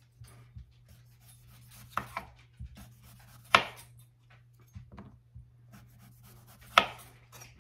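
Chef's knife slicing through a raw russet potato into thick rounds, the blade knocking sharply on the cutting surface a few times, loudest about three and a half seconds in and again near the end.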